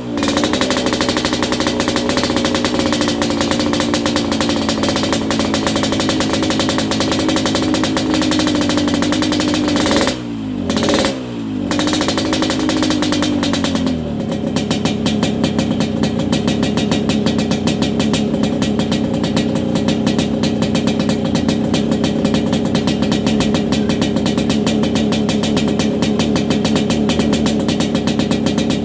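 Yamaha RX-King 135cc single-cylinder two-stroke engine running through a dry-sounding 'kolong' exhaust with a raspy, snoring note. It holds a high note that sags slowly for about ten seconds, drops off with two quick blips, comes back up briefly, then settles into a steady, lower, rough-edged running note from about halfway on.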